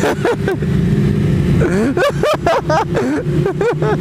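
Honda CBR 600 F3 motorcycle engine running at a steady cruise, heard from the rider's seat. Rapid up-and-down gliding tones sound over it briefly near the start and again through the second half.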